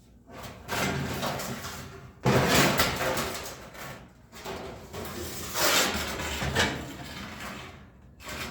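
Sheet-metal outer shell of a toaster oven scraping and clattering as it is worked off the oven body, in several noisy bursts, the loudest starting a couple of seconds in.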